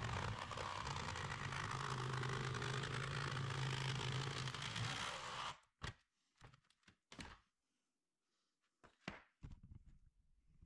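Cordless jigsaw cutting through thin galvanized sheet steel, a steady loud buzz with a low hum, stopping abruptly about five and a half seconds in. It is followed by a few short knocks and scrapes as the cut-out sheet-metal disc is handled.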